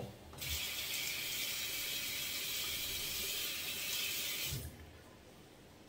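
Bathroom sink tap running in a steady stream for about four seconds, then shut off with a soft low thump.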